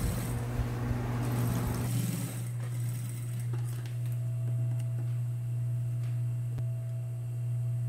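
Industrial sewing machine stitching a topstitch, stopping about two seconds in. A steady low hum carries on after the stitching, the machine's motor left running, with a few light clicks as the thread is snipped and the fabric handled.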